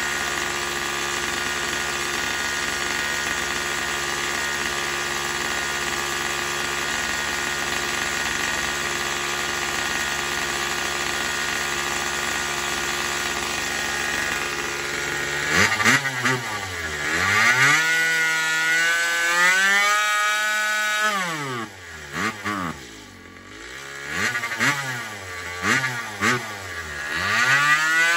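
Stihl MS 170 two-stroke chainsaw engine, being set up to run on methanol, idling steadily while its carburetor is adjusted. About halfway through it is revved up and down about five times, the pitch rising and falling with short drops back toward idle between blips.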